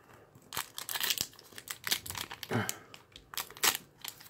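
Foil wrapper of a Pokémon trading card booster pack crinkling and tearing in the hands as it is opened, a run of irregular sharp crackles.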